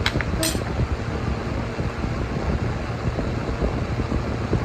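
Steady low rumbling background noise, like a fan or air conditioner, with two sharp clinks of a metal fork against a plate near the start.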